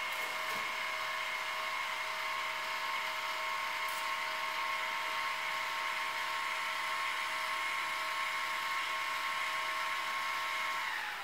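iOptron ZEQ25GT equatorial mount slewing back to its home position under a load of about 10 to 11 pounds of telescope gear: its axis motors and worm gears give one steady, quiet whine with no double tone. The whine winds down and stops near the end as the mount arrives at home.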